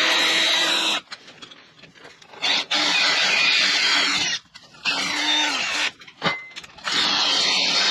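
Cordless drill boring into a steel square-tube frame, run in several bursts with short pauses between. The bit squeals as it cuts the metal.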